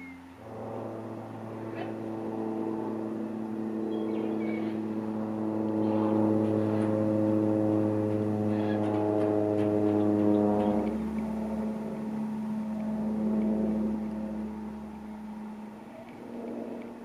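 Farm tractor engine running with a steady drone at constant pitch. About eleven seconds in its note drops lower and the sound eases off.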